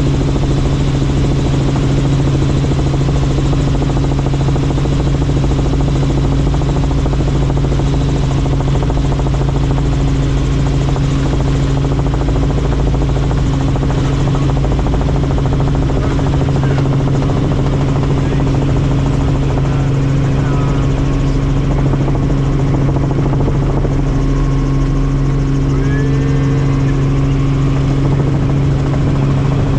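Helicopter running steadily: a loud, unbroken engine and rotor noise with a constant low hum that doesn't rise or fall.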